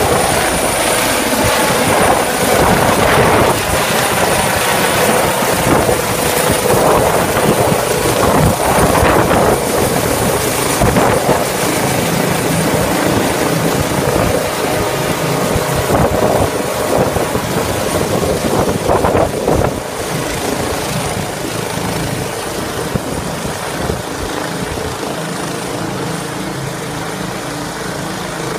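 Helicopter taking off and climbing overhead: continuous rotor and engine noise with a steady high whine, loud at first, dropping noticeably about twenty seconds in and then slowly fading.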